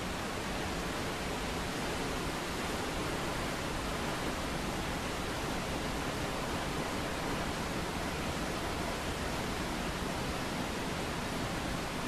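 Mountain waterfall rushing in a steady, unbroken roar of falling water.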